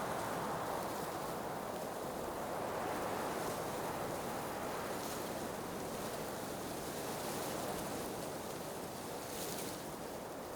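Blizzard wind blowing steadily: a dense rushing noise that swells and eases a little, with brief higher hisses of gusts about halfway through and again near the end.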